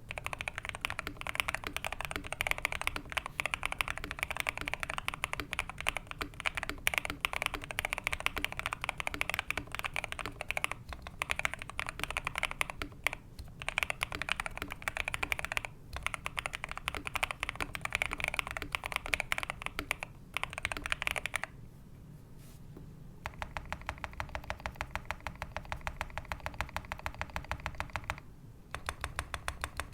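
A modded Next Time 75 mechanical keyboard being typed on fast in a dense run of keystrokes. It has lubed and filmed Tecsee Ice Candy linear switches, PBT keycaps, a PE foam mod and a tape mod. A little over two-thirds of the way in the typing pauses briefly, then resumes as steadier, evenly paced strokes with another short break near the end.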